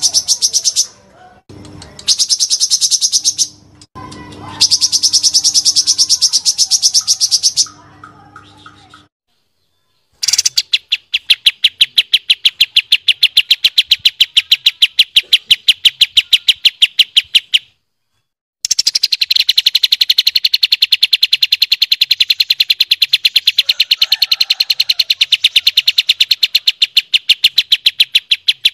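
Kapas tembak and cucak cungkok song played as a masteran recording: loud, fast, evenly pulsed high rattling trills. The rattles come in several bursts with short breaks, and the last two run for about seven and ten seconds.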